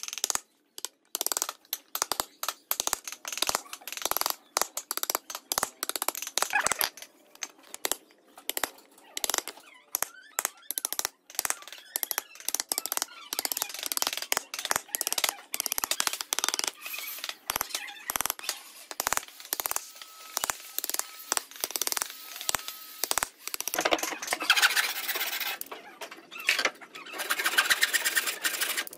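Wooden mallet knocking a steel chisel into a pine beam to chop out a mortise, in irregular sharp strikes with quieter chisel paring between. Near the end the strikes give way to quick, rasping strokes of a hand saw cutting a tenon.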